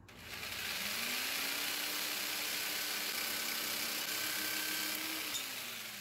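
Jigsaw cutting through a strip of G-10 fiberglass laminate, a steady rasping cut. The motor's pitch rises about a second in, holds steady, and drops again near the end.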